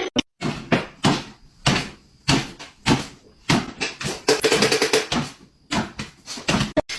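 A series of sharp knocks and bangs, about a dozen, irregularly spaced, with a short pitched sound a little past the middle.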